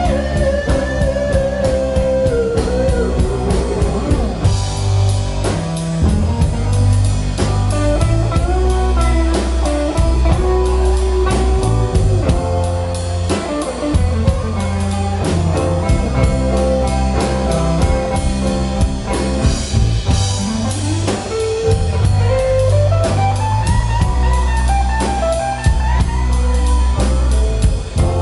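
Live band playing: electric bass, acoustic and electric guitars and a drum kit, with melody lines moving over a steady bass and beat.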